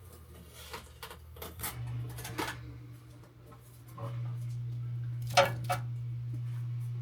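Light clicks, taps and clatter of coffee-machine parts being handled, with two sharper knocks about five and a half seconds in. A steady low hum comes in about two seconds in and grows louder about four seconds in.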